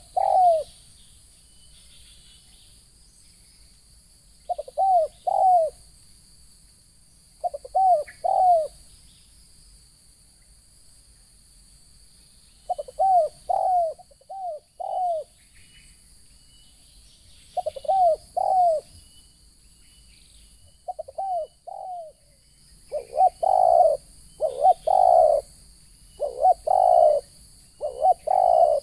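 Spotted dove cooing in short phrases of two or three notes, repeated every few seconds. From about two thirds of the way in, the coos come louder and closer together.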